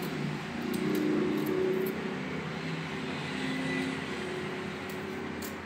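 Road traffic passing: a motor vehicle's engine hum swells about a second in and fades after about four seconds. Faint, light scrapes of a small knife stripping the ridges from a ridge gourd sound under it.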